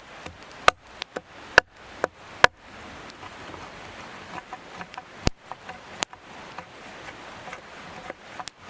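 A series of sharp chopping strikes with a blade, about one a second over the first few seconds, then lighter ticks and two more strikes a little past halfway, over a steady hiss.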